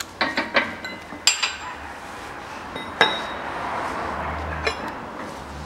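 Steel on steel: the press driver plate and the cast-iron brake disc and hub clinking and knocking as they are handled on the press, the bearing race just pressed into the hub. A string of metal clinks, two of them sharp and ringing at about one and three seconds in.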